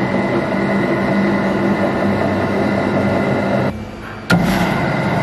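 Car lift's electric pump motor running with a steady hum as it raises the car. It stops a little before four seconds in and starts again with a sharp click about half a second later.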